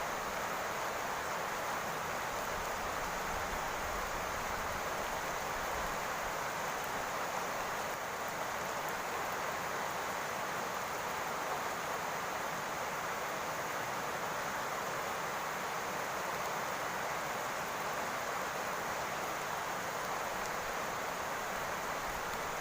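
Rain falling steadily on a roof, an even hiss with no separate drops standing out.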